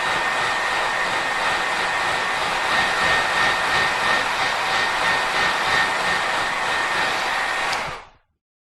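Hair dryer running steadily: a loud rush of air with a thin high whine through it, cutting off sharply about eight seconds in.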